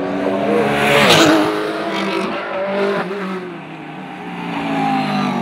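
GT race cars at speed on the circuit. One passes close about a second in, its engine note dropping as it goes by. The sound then fades and builds again as more cars approach near the end.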